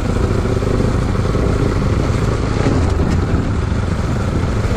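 Bajaj Pulsar NS200's single-cylinder engine running at a steady cruise while riding, mixed with wind and road noise on the handlebar-mounted microphone.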